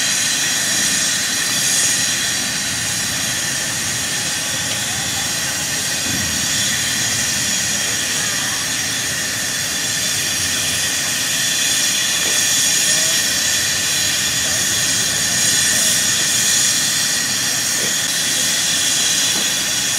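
Narrow-gauge steam locomotive standing at rest with steam hissing steadily and loudly.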